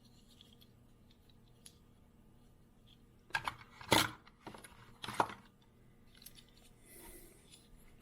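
Small die-cast metal toy cars clinking and rattling against each other as they are handled, in a short cluster of sharp clicks about halfway through.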